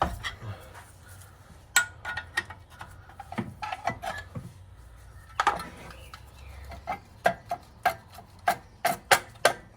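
Irregular metallic clicks and clanks of hand tools on the clutch assembly as the worn clutch is unbolted from the flywheel. The clicks come thicker and more regularly in the second half.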